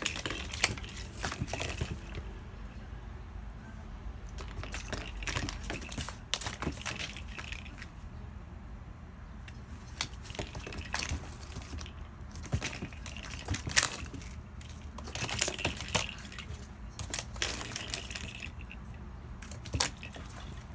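Irregular clicking and light clattering of hard plastic parts as kittens play with a cat toy, coming in scattered bursts with a few louder knocks.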